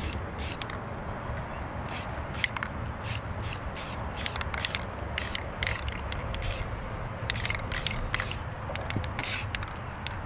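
Aerosol spray can giving a string of short spray bursts, about two a second, as a metal scoop is coated.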